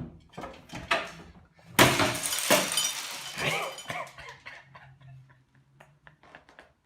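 A few knocks, then a sudden loud crash with ringing clinks, like something brittle breaking. The crash dies away over a couple of seconds.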